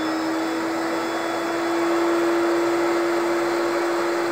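Fuji Q4 Pro HVLP spray turbine running at full speed: a steady whine over a rush of air.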